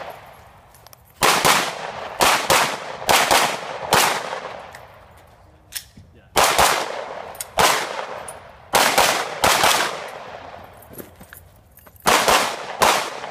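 Pistol shots fired in quick pairs, a fraction of a second apart, each ringing off with a short echo. Three strings of shots are separated by pauses of a couple of seconds while the shooter moves between shooting positions on a USPSA stage.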